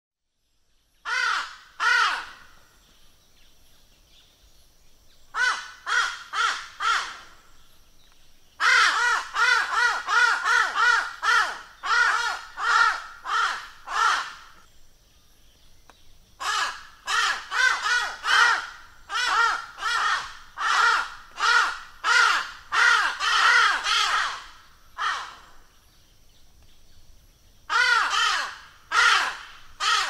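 White-billed crow (Corvus woodfordi) calling: harsh, nasal caws given in series, from single pairs to long runs of about two or three calls a second. A faint steady high-pitched tone sits behind in the pauses.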